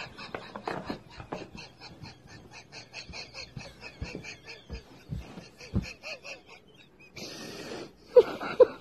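Toddler fussing in a tantrum: a quick run of short, high cries, with a few dull thumps partway through.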